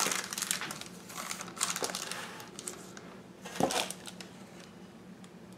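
Rustling of parchment paper and handling of a baking tray on a countertop, with a small knock about two seconds in and a louder thump about three and a half seconds in, over a faint steady hum.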